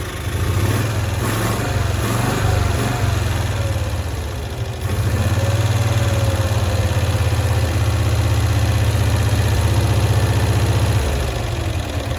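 1965 Cushman Truckster engine running at idle with an even, rapid beat. It picks up and gets louder about five seconds in, then eases back slightly near the end.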